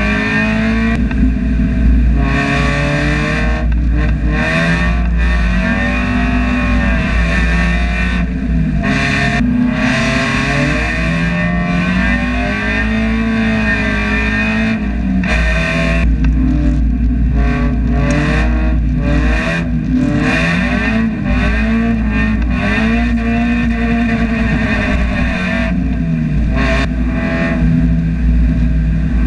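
Mazda Miata race car's four-cylinder engine, heard from inside the cockpit, its revs rising and falling again and again as it is driven hard and slid through corners on a wet track. Short bursts of hiss come and go between the revs.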